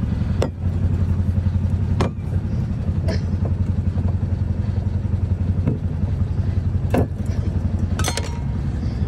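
An engine idling steadily, a low rumble pulsing fast and even. A few sharp clicks and knocks sound over it, a small cluster near the end.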